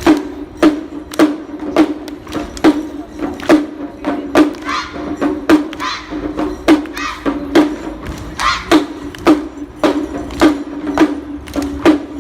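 Shishi-mai (Japanese lion-dance) percussion: a drum struck in a steady rhythm, about two strong beats a second with lighter hits between, and a ringing higher-pitched hit now and then.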